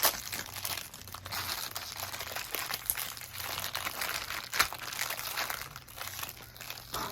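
Plastic wrapper of a surprise collectible minifigure being crinkled and torn open by hand, with scattered sharp crackles.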